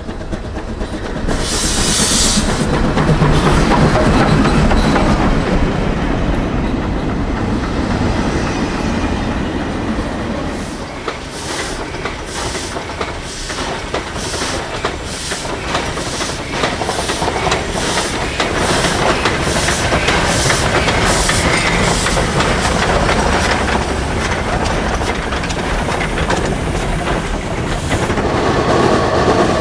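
Steam locomotives running by, the sound following the picture across several scenes: a short burst of steam hissing about two seconds in, then a long run of evenly spaced sharp beats, about one and a half a second, over a steady rumble.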